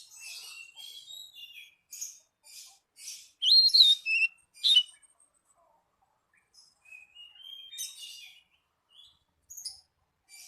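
Songbirds singing: quick runs of high chirps and trills, with a few loud, clear whistled notes in the middle, a short pause, then the chirping song starts again.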